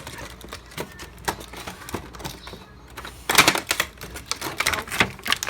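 Plastic and cardboard toy packaging being handled and pried open: a run of sharp clicks and crackles, densest about three seconds in.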